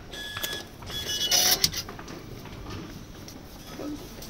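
Metro ticket gate beeping twice as a pass is validated, each beep short and steady, followed about a second and a half in by a brief loud burst of noise, over a steady background hum.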